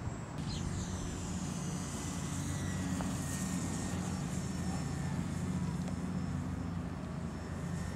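Electric motor and propeller of a Parkzone Corsair RC plane flying overhead: a thin whine that falls slowly in pitch as it passes, over a steady low rumble.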